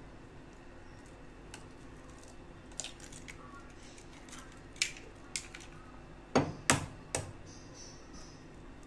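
Eggs tapped and cracked against the rim of a glass mixing bowl: a few light clicks, then a cluster of three sharp knocks about six to seven seconds in. A faint steady hum lies underneath.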